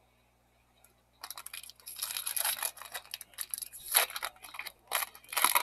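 Foil wrapper of a 2013 Panini Prizm baseball card pack crinkling and tearing as it is opened by hand, starting about a second in, with sharp rips about four seconds in and again near the end.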